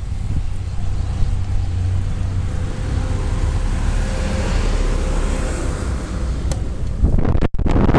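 Snowcat engine running with a steady low rumble as the tracked groomer passes close by. About seven seconds in, a loud rough rush of wind buffeting the microphone takes over.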